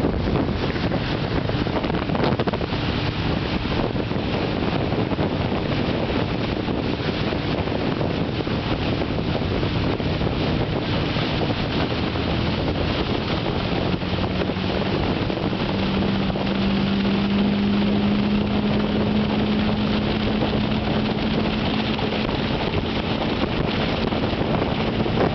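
Motorboat engine running steadily at speed while towing a barefoot water skier, under a steady rush of water spray and wind on the microphone. From about halfway through, the engine note grows stronger and climbs slightly in pitch.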